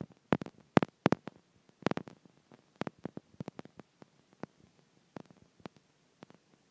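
Irregular small clicks and taps of a toddler's spoon knocking against the bowl and tray while eating oatmeal, several close together in the first two seconds, then sparser and softer.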